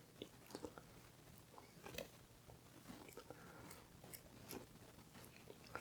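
Faint wet squishing and light clicks of hands pressing and shaping ground-beef koobideh mixture onto a skewer.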